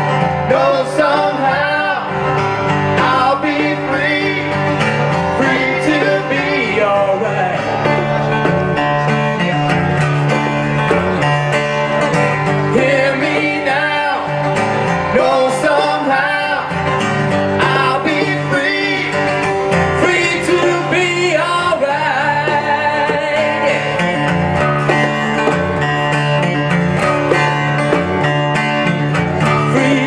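Live country-style song on a strummed acoustic guitar with bongos, and a man's voice singing at times.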